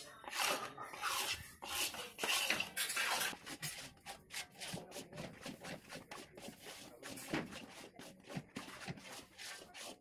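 A ladle stirring and scraping thick milk-powder burfi batter in a steel pan, with a run of quick scrapes and clinks against the metal.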